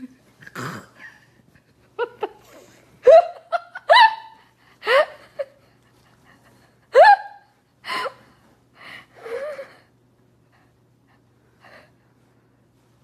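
Corgi puppies yipping during rough play, a string of short, sharp high yelps roughly a second apart.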